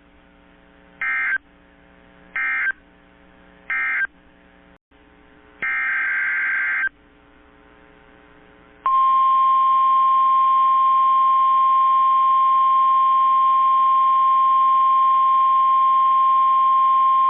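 NOAA Weather Radio EAS/SAME data bursts: three short warbling digital bursts about a second and a half apart, the end-of-message code for the previous warning, then a longer burst. After about nine seconds in, the steady 1050 Hz weather alert tone sounds loudly and holds for about nine seconds, the signal that a new alert is about to be read.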